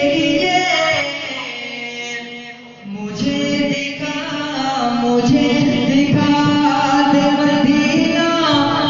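A man singing an Urdu devotional hymn (hamd) in long, melismatic phrases; the singing drops in loudness for a moment about two to three seconds in, then comes back.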